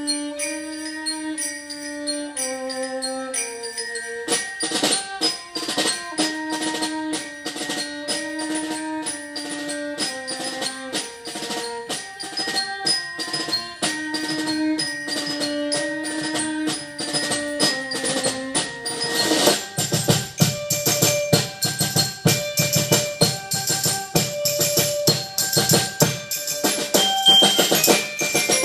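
Live Christmas music played on stage: a melody of held notes that step up and down, joined about four seconds in by fast, steady drumming. The music grows louder and fuller about two-thirds of the way through.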